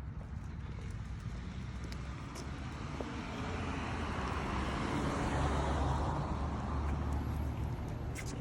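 A car passing on a wet road: tyre hiss and engine rumble swell to a peak about halfway through, then fade.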